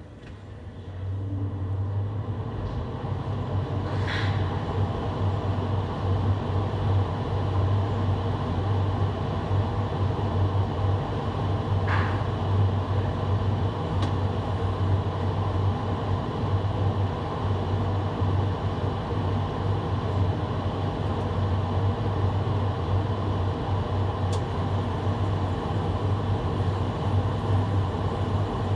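Carrier air handler's blower fan starting up about a second in, spinning up over about a second, then running steadily with a low hum and a rush of air.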